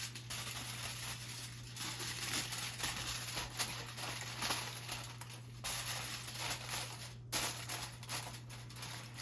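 Plastic cling wrap being pulled, torn and crinkled as it is stretched over a bowl, an irregular crackling with scattered sharp ticks.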